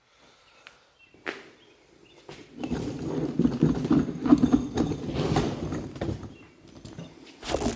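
Rapid clicking and rattling of a hand tool on metal as a bolt on the surface cleaner is worked loose, running from about two and a half to six seconds in, with a few single knocks before and near the end.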